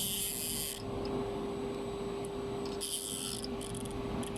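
Polyurethane gasket dispensing machine with a steady hum, its axis drive moving the mixing head in short runs: a high, hissy buzz for most of the first second, again for about half a second around three seconds in, then a few brief blips.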